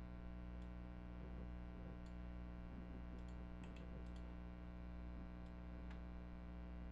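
Steady low electrical hum with about a dozen faint, light clicks scattered through it, several close together near the middle.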